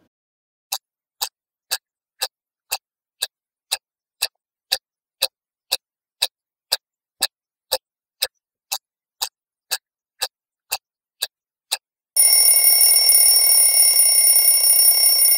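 Clock ticking evenly, about two ticks a second, then an alarm clock bell breaking into a loud, steady ringing near the end.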